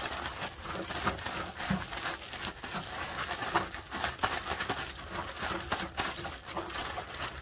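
Plastic zip-top bag crinkling and rustling as a hand kneads moist breadcrumb-and-corn pack bait inside it, in irregular crackles throughout.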